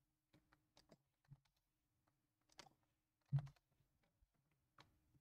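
Faint, irregular clicks of a computer mouse and keyboard, about half a dozen, the loudest about three and a half seconds in.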